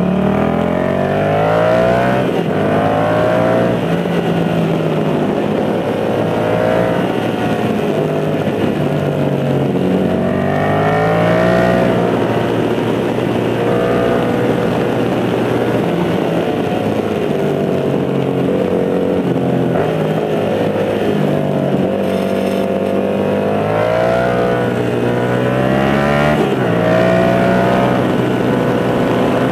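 Yamaha MT-07's parallel-twin engine through an aftermarket MIVV GP carbon exhaust, heard on board while riding. The revs climb and fall back several times as the bike accelerates, shifts and rolls off for bends.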